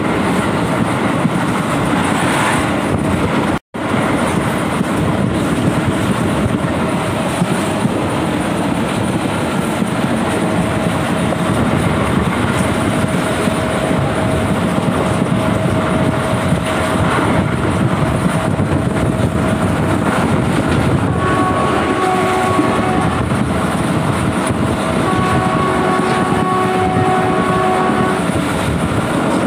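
Passenger train running along the track, heard from onboard the coach: a steady loud running noise. In the last third a held pitched tone sounds twice.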